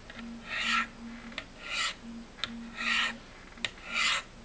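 A Spyderco Endura's steel blade drawn down the corners of a Spyderco Sharpmaker's ceramic sharpening stones: four rasping strokes about a second apart, with a light click between some of them.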